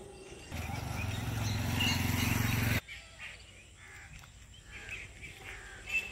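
Outdoor ambience with birds chirping. A louder low rumbling noise builds over about two seconds and cuts off abruptly just before halfway.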